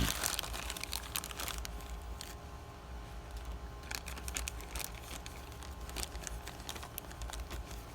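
Plastic packaging of a new hydraulic cylinder seal kit crinkling, with scattered small clicks as the seals and parts are handled, over a steady low hum.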